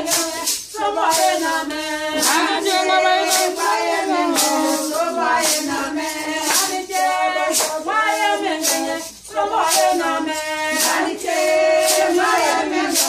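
Voices singing a song, with sharp percussive strokes keeping a steady beat about twice a second.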